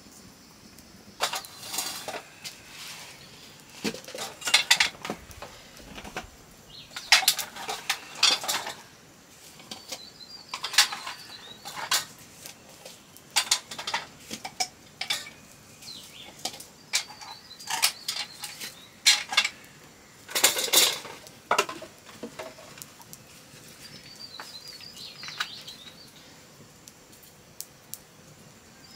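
Metal utensils clinking and scraping against pots and dishes in irregular clatters, with faint bird chirps now and then in the background.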